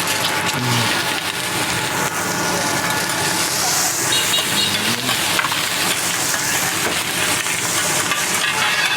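Fried rice sizzling on a hot teppanyaki iron plate, a steady hiss with many short scrapes and clicks of a metal spatula working the rice.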